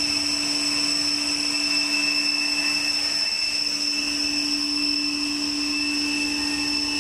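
Water-cooled chiller running: a steady machine hum with constant high-pitched whining tones over it.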